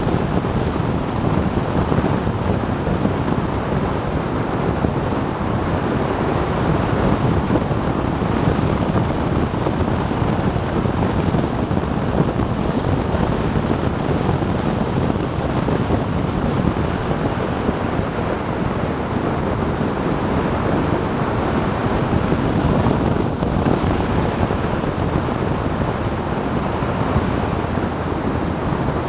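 Steady rushing wind noise on the microphone of an action camera mounted on a BMW R1200GS Adventure motorcycle riding at around 100 km/h.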